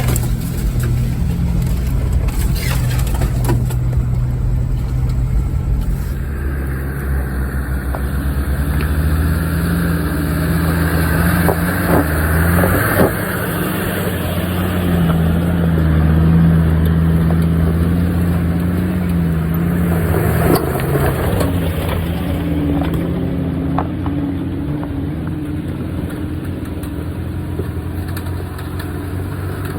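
A 4x4's engine running as it drives slowly over a rough track, its note rising and falling, with a few knocks from the vehicle over the ground.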